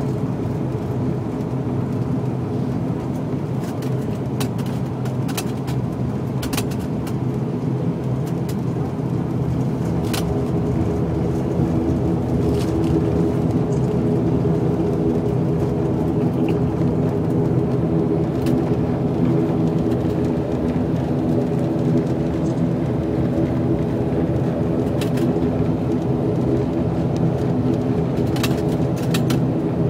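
The twin turboprop engines and propellers of an ATR 72-500 airliner, heard inside the cabin as a steady drone of several layered tones while the plane taxis before take-off. The drone grows a little louder about twelve seconds in.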